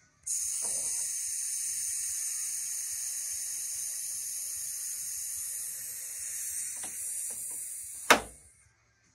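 Pneumatic retract landing gear of a scale Bearcat model extending: compressed air hisses steadily for about eight seconds while the long-stroke cylinder slowly swings the leg down. A sharp clunk sounds about eight seconds in as the leg reaches full extension, and the hiss then fades out.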